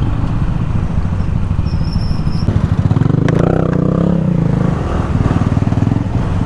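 Motor-scooter engine running in slow traffic, probably the rider's own Yamaha NMAX 155 single-cylinder. An engine note rises and then falls back about halfway through.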